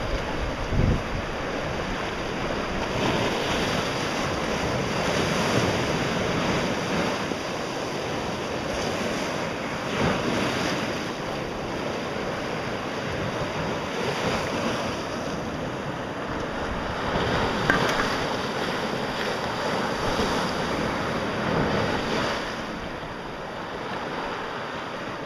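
Small sea waves breaking and washing in foam over a flat rock shelf, the surf swelling and easing every few seconds.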